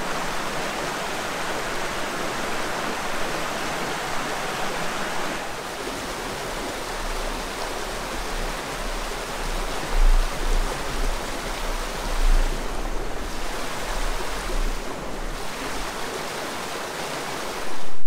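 Forest stream rushing over rocks in small cascades, a steady, full rush of water. A few low bumps stand out about ten and twelve seconds in.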